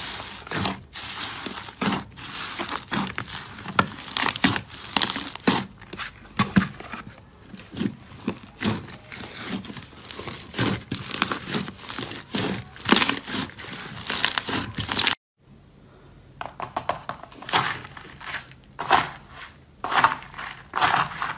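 Slime being squeezed, stretched and folded by hand, giving a dense, irregular run of sharp sticky crackles and pops. The sound cuts out briefly about fifteen seconds in, then carries on.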